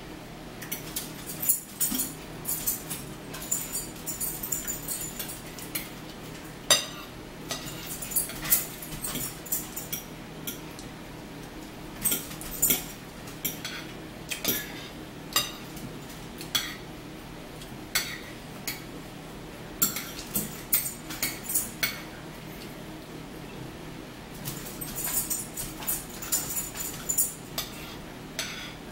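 Forks clinking and scraping against dinner plates as two people eat, in irregular runs of short, sharp clicks, with mouth sounds of chewing.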